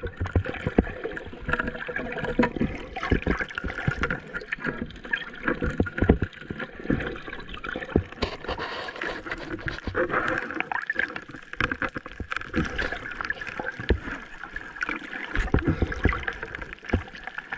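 Underwater water noise heard through a GoPro's waterproof housing while swimming over a reef: a muffled rushing and sloshing, crowded with many small irregular clicks and knocks.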